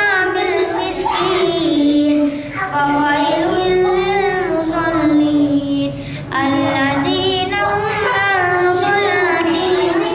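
A boy chanting Qur'an recitation in a melodic style, with long held, wavering notes and two short breaks for breath, about two and six seconds in.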